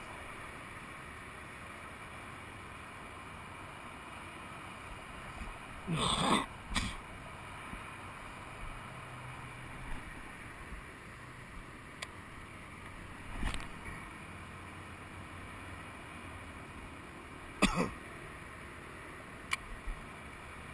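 Steady hiss with a few sudden bumps and knocks from handling the fishing rod that the camera is mounted on: the loudest is about six seconds in, with others near the middle and near the end.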